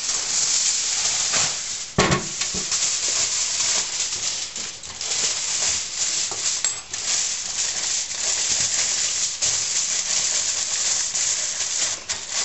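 Aluminium foil crinkling and crackling as it is pulled off the roll and wrapped tightly around a piece of seared beef, with one knock about two seconds in.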